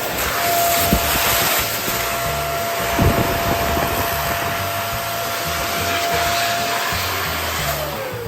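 Electric balloon pump running with a steady whine and a hiss of air, inflating a balloon. There are two brief knocks about one and three seconds in, and near the end the motor winds down, its whine falling in pitch.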